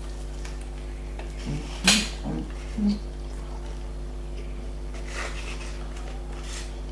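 Eating sounds at a meal: a sharp clink of cutlery or packaging about two seconds in, a few brief low mouth sounds around it, and soft rustles later, all over a steady low electrical hum.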